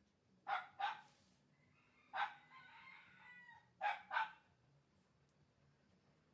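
A rooster crows once, about two seconds in. Pairs of short, sharp dog barks come just before it and again about four seconds in.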